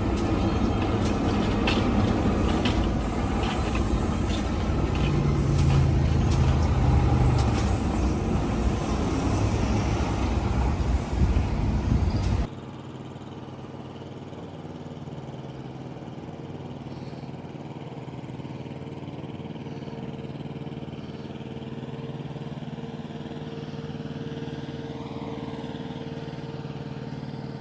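Delivery truck's engine running as it pulls in, with some clatter over it; about halfway through, the sound drops abruptly to a quieter, steady engine hum.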